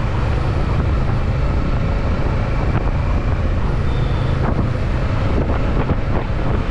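Kawasaki Ninja 650's parallel-twin engine running steadily under way, with wind rushing over the microphone.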